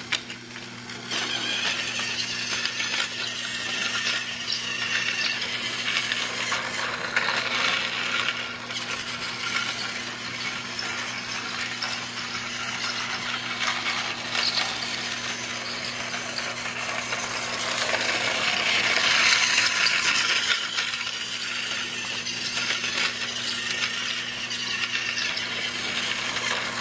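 Battery-powered toy train running on plastic track: a continuous rattle of small clicks over a steady low hum, growing louder for a couple of seconds about two-thirds of the way in.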